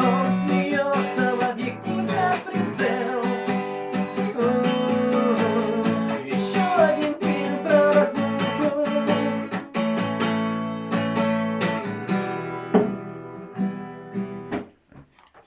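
Acoustic guitar strummed in chords as a song's closing passage, with some sung voice over it; the playing dies away and stops about a second before the end.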